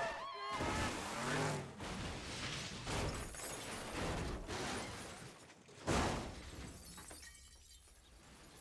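Car crash sound effects: a scream dies away at the start, then a string of heavy crashes and breaking glass follows, the loudest impact about six seconds in, after which the sound fades down.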